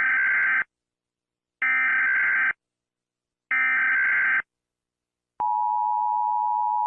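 Emergency Alert System SAME header: three bursts of digital data tones, each about a second long and about a second apart. About a second after the third burst, the steady two-tone EAS attention signal starts and holds to the end.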